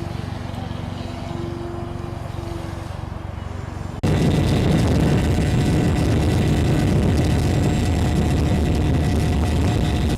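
Radio-controlled model airplane's motor and propeller running steadily in flight, with a faint steady whine. It jumps abruptly to a louder stretch about four seconds in.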